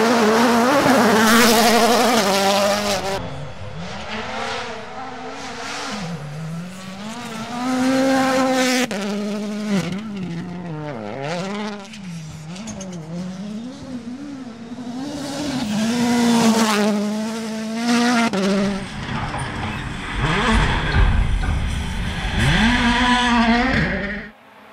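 Rally car engines revving hard, their pitch climbing and dropping again and again through the gear changes as the cars pass at speed. Several short clips are cut together, so the sound breaks off and restarts every few seconds. A heavier low rumble comes in near the end.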